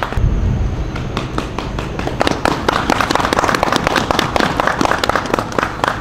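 A group of people applauding, with many overlapping sharp claps, and a low rumble in the first second.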